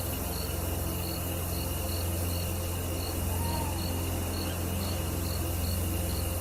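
A cricket chirping in short, evenly spaced high-pitched pulses, about two or three a second, over a steady low drone.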